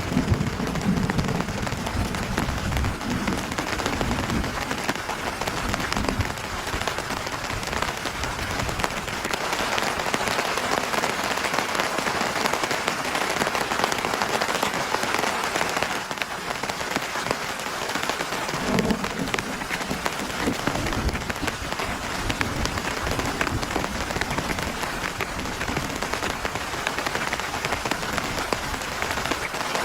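Heavy rain falling steadily, with short low rumbles in the first few seconds and again about two-thirds of the way through.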